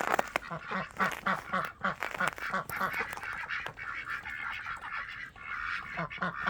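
Muscovy ducks calling in runs of short, repeated low notes, about four a second.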